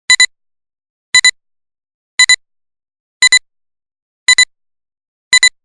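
Electronic beeping: a pair of short, high beeps about once a second, six times over, with dead silence between.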